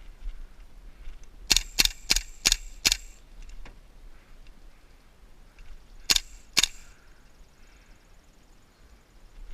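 Gas blowback airsoft rifle, a KWA LM4, firing single shots: five sharp cracks in quick succession over about a second and a half, then two more half a second apart about six seconds in.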